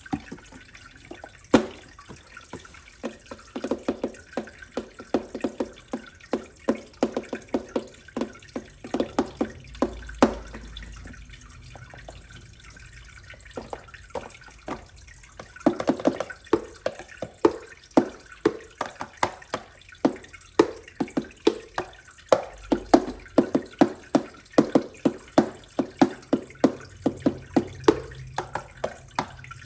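Water dripping: a rapid, uneven patter of small drops, each with a short pitched plink, thinning out for a few seconds midway.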